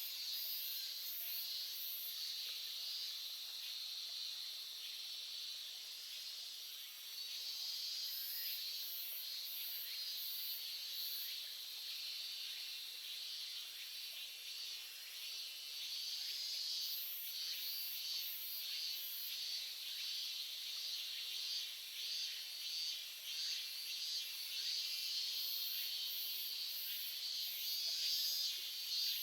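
A small stream babbling steadily. Over it an insect chirps in very high, evenly spaced pulses, in several bouts of a few seconds each.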